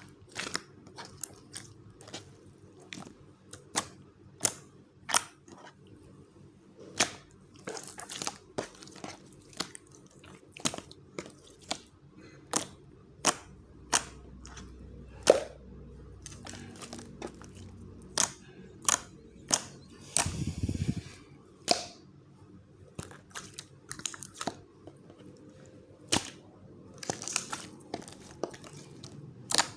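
Slime being squeezed and poked by hand, giving irregular sharp clicks and pops.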